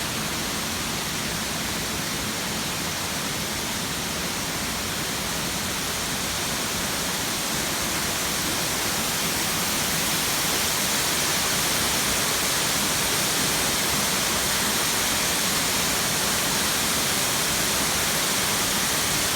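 Waterfall: a steady rush of falling water, growing a little louder from about halfway through.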